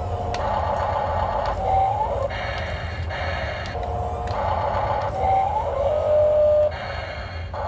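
Radio-controlled model excavator working, its small electric motors whining in repeated runs of a second or so, with short rising whines as the load changes and a steady low hum underneath.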